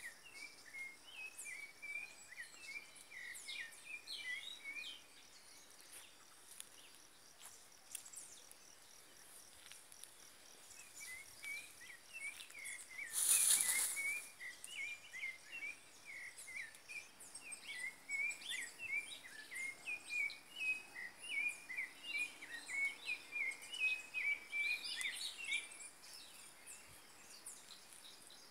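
Forest birds chattering in bouts of quick, high chirping notes over a faint, steady high insect buzz. About halfway through, a loud burst of noise lasting about a second stands out above them.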